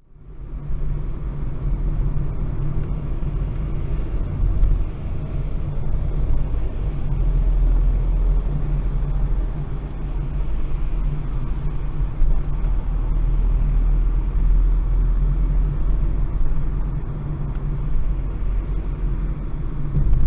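Steady low road rumble from inside a moving car's cabin: tyre and engine noise picked up by a dashcam while driving at around 40 mph. It fades in quickly at the start.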